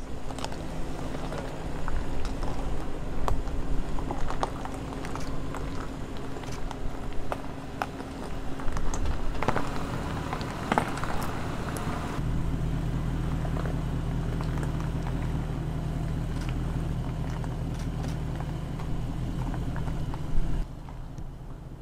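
2022 Land Rover Defender V8's 5.0-litre supercharged V8 engine running at low, steady revs while crawling over a steep dirt slope. Its tyres crunch and click over loose stones and gravel. The engine note becomes steadier and more prominent about twelve seconds in.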